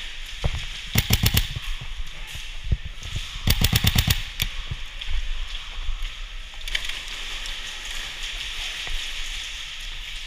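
Airsoft rifle firing two short full-auto bursts, rapid cracks at about ten a second, the first about a second in and a slightly longer one about three and a half seconds in. A steady hiss of indoor arena noise runs under them.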